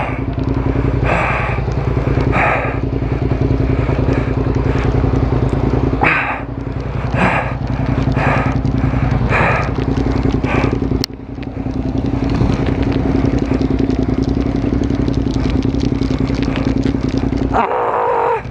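Suzuki SV650S V-twin engine running at idle after a push start, then cutting out about a second before the end: the engine stalls.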